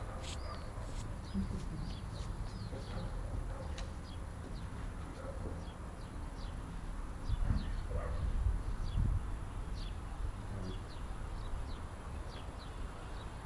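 Birds chirping, many short high calls scattered irregularly, over a steady low rumble.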